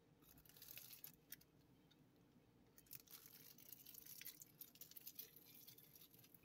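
Near silence, with faint soft rustling and light clicks from hands handling food and the phone, in two spells: about a second in and again for a couple of seconds through the middle.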